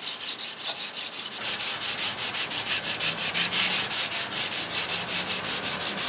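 400-grit sandpaper on a paint stick rubbed back and forth by hand over dried feather-fill primer, about five quick rasping strokes a second: block sanding the guide coat to level out low and high spots.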